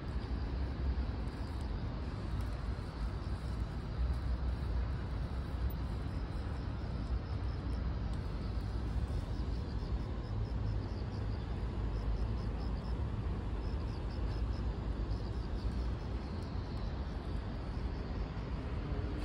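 Steady outdoor city ambience, mostly a low rumble of distant traffic. Faint short high-pitched notes repeat over it through the middle stretch.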